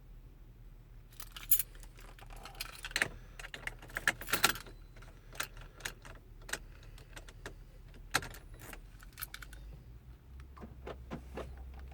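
A key ring jangling and clicking as the keys are handled at the ignition of a 2014 GMC Sierra 1500 that won't start, with no starter cranking. A low hum runs underneath and grows louder about ten seconds in.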